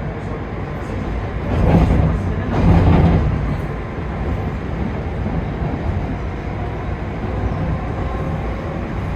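London Underground Northern line train running, heard from inside the carriage: a steady low rumble of wheels on rail, with two louder surges about two and three seconds in.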